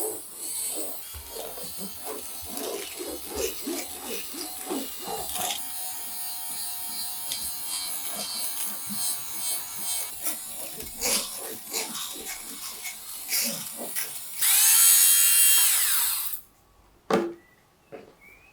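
Small clicks and scrapes of kitchen work, then near the end a small electric motor whirs, rising in pitch as it spins up, for about two seconds and cuts off suddenly, leaving a few faint clicks.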